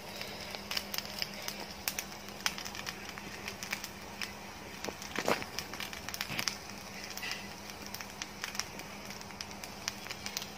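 Rice frying in a hot pan, crackling with many small pops, with the occasional stroke of a wooden spatula through the rice. The popping is the sign the cook watches for that the rice is frying well.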